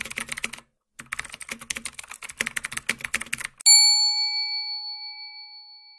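Typing sound effect: a quick run of key clicks, a short break, then a longer run of rapid clicks for about two and a half seconds. Then a single bright bell ding that rings on and slowly fades away.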